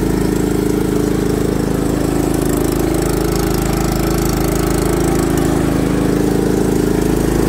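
Riding lawn tractor's gasoline engine running steadily, freshly started, while it burns off oil from a crankcase that is way overfilled, the cause of its heavy white smoke.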